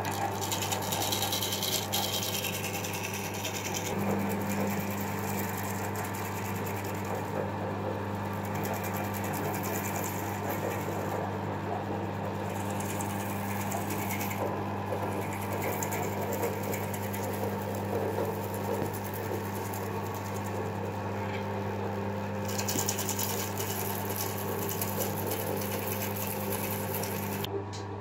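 Wood lathe running with a steady motor hum while a hand-held gouge cuts the skin off a pineapple spinning on it.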